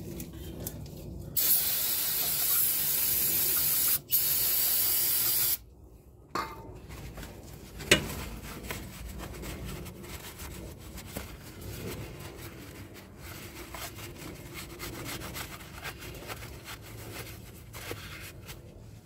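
Aerosol cleaner sprayed in two long hissing bursts, the second straight after the first. A sharp click follows about eight seconds in. Then comes the scratchy rubbing of a paper shop towel wiping the oil filter adapter's mounting surface on the engine block.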